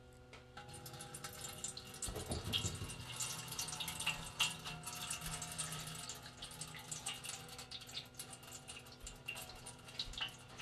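Water being poured into the water compartment of a heated Starfrit Rock smokeless electric grill, a continuous trickling with many small drips and splashes.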